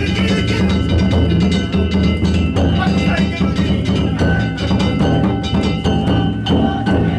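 Danjiri float's festival music (narimono): taiko drums beaten in a fast, continuous rhythm with small hand gongs clanging and ringing over them.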